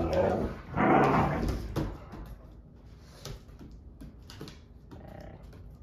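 A husky-malamute mix giving a drawn-out vocal complaint about a second in, which fades away, then scattered knocks and clicks of dogs moving on a wooden floor.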